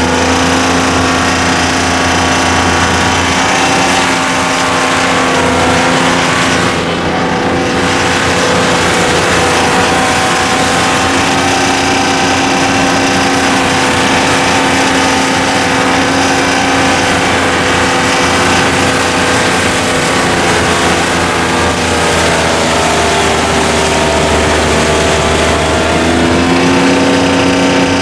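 Softrak tracked harvester's diesel engine running loud and steady as the machine drives along, its note sagging and climbing back a few seconds before the end.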